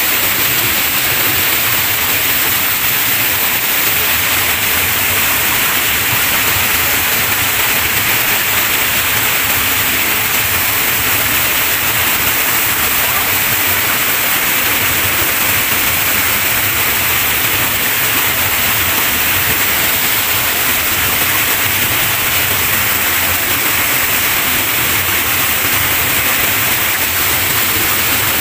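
Small waterfall pouring over a rock lip and crashing into a shallow rock pool: a loud, steady rush of churning white water.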